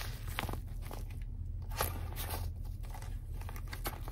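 Handling noise of a fabric zip wallet being turned and opened in the hands: soft rustling with a few light clicks from its zipper and fittings, over a low steady hum.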